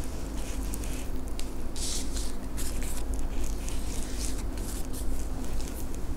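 Tarot cards being handled on a cloth-covered table: a run of soft card slaps and rustles, with a longer shuffling rustle about two seconds in, over a steady low hum.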